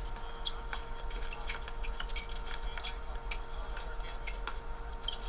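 Irregular light clicks and taps, several a second, over a steady low hum.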